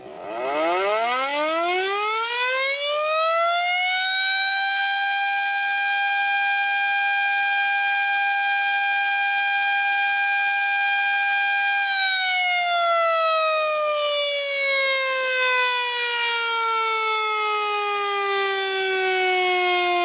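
Loud siren winding up from a low pitch to a high steady wail over about four seconds and holding it. A little past halfway it slowly winds back down in pitch.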